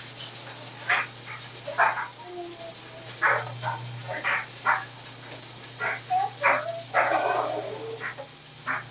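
A dog whining and yipping in short, irregular bursts over a low steady hum.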